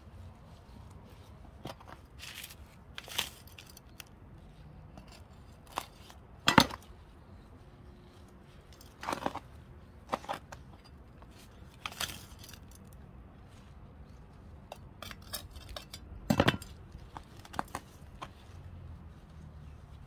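Gloved hands working loose potting mix around a geranium in a plastic pot: scattered short crunches and rustles of soil and light knocks, irregular, the loudest about six and a half seconds in and a small cluster near sixteen seconds.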